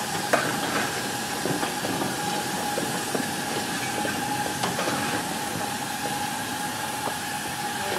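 Small live-steam locomotives standing in steam: a steady hiss with a thin steady tone running through it, and a few sharp metallic clicks.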